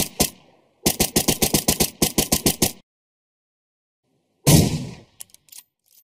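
Video game automatic gunfire, fast bursts of about seven shots a second that stop about three seconds in. One heavier single shot follows about four and a half seconds in, then a few faint clicks.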